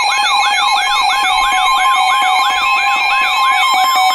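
Electronic emergency weather-alert tone: a siren-like rising sweep repeating about four times a second over two steady tones. It is the alarm that heralds a severe thunderstorm warning.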